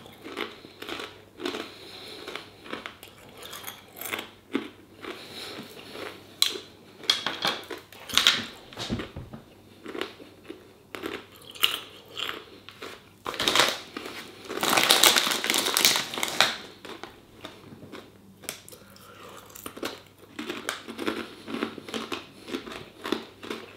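A person chewing crunchy Takis Fuego rolled corn tortilla chips close to the microphone, with irregular crunches throughout. A little past halfway there is a longer, louder stretch of crinkling as the foil snack bag is handled.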